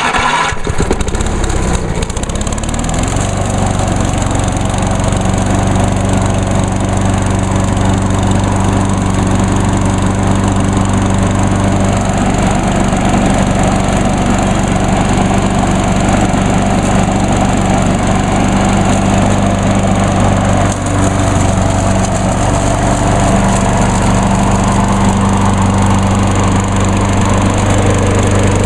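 Briggs & Stratton 675 series 190 cc single-cylinder engine on a Craftsman self-propelled push mower, just started with its electric key start. It settles within the first couple of seconds and then runs steadily.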